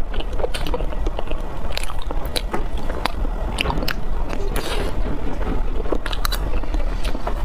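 Close-miked eating of chocolate-glazed mousse cake: chewing with many sharp, wet mouth clicks and smacks, over a steady low hum.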